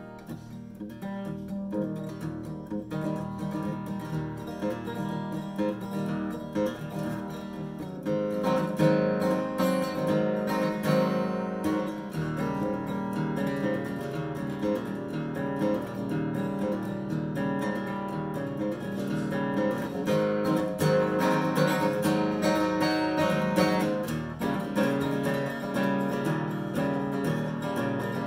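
Martin D-18 acoustic guitar with Stringjoy strings, strummed with a heavy D'Andrea pick. Each stroke carries a clicky pick attack over ringing chords. The playing grows louder about eight seconds in.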